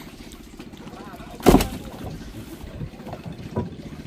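Fishing boat's engine running with a steady low throb, and a loud thud about one and a half seconds in as a tuna is dropped onto the deck; a lighter knock follows near the end.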